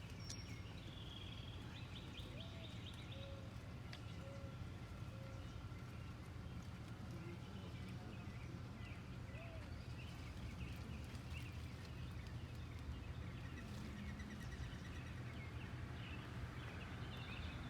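Outdoor ambience: a steady low rumble with faint bird chirps and short trills over it.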